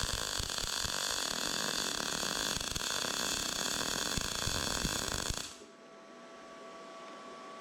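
MIG welding arc from an R-Tech 181 MIG welder running a continuous bead on mild steel: a loud, dense hiss full of small pops that stops abruptly about five and a half seconds in, leaving only a faint hum.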